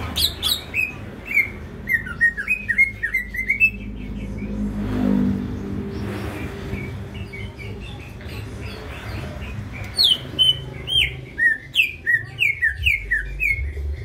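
Male greater green leafbird singing two rapid runs of short, sharp chirping notes: one in the first few seconds, the next starting about ten seconds in. A low rumble runs underneath and swells briefly between the runs.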